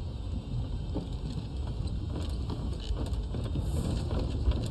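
Low, steady rumbling ambience from a horror film's soundtrack, with faint scattered ticks and creaks over it.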